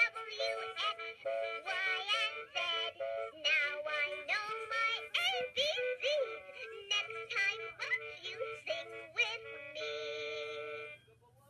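LeapFrog Alphabet Pal electronic toy playing a synthesized sung tune in its music mode. The melody ends on a held note that cuts off near the end.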